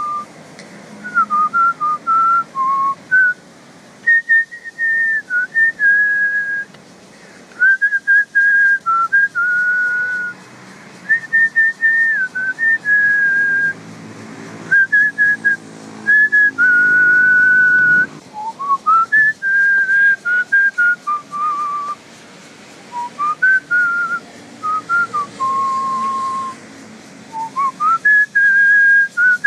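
A person whistling a tune: phrases of clear single notes stepping up and down, with short pauses between the phrases.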